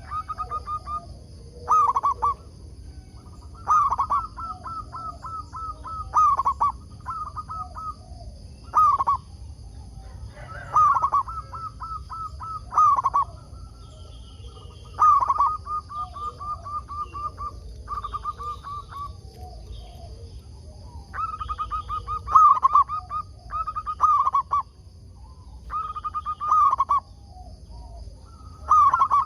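Zebra dove (perkutut) cooing its song over and over: each phrase is a loud note followed by a rapid run of short staccato notes, repeating every two seconds or so.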